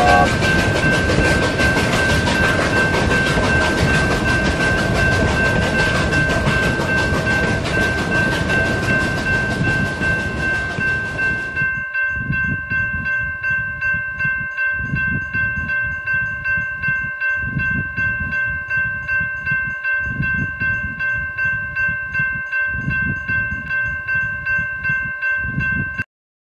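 Railroad crossing bell ringing steadily as a train rumbles past. The train noise stops about twelve seconds in, and the bell rings on alone in even pulses until it cuts off suddenly near the end.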